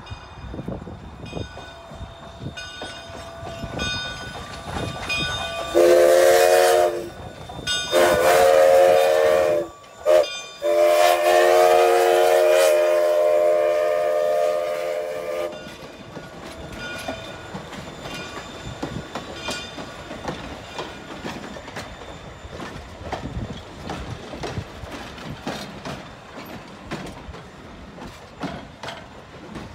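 Alco 2-6-2 steam locomotive's bell rings at an even beat. Its steam whistle then blows the grade-crossing signal: two long blasts, a short toot and a final long blast. After that the passenger cars roll past, wheels clacking over the rail joints.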